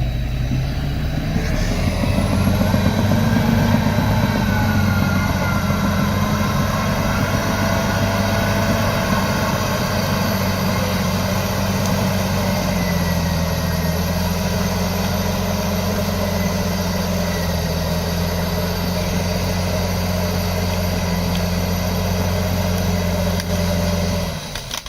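Heavy-equipment diesel engine running steadily. Its pitch rises a little in the first few seconds and then holds, with a thin high whine over it. The sound drops away briefly near the end.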